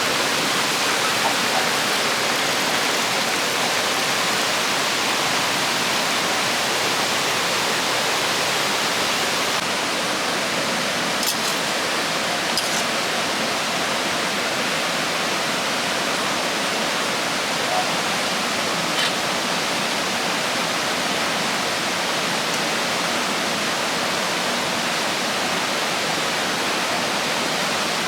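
Rushing river water, a steady full hiss with no letup, with a few faint clicks over it.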